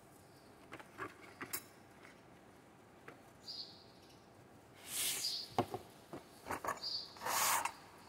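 Cardboard packaging being handled as a box is opened and a cardboard insert tray is lifted out: scattered light taps, then two longer rustling scrapes of cardboard, about five and seven and a half seconds in, with a few knocks between them.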